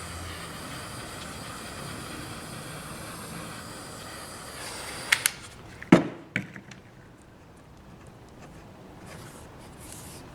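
Small handheld butane torch hissing steadily for about five seconds as it heats heat-shrink tubing, then cut off, followed by a few sharp clicks and one louder knock.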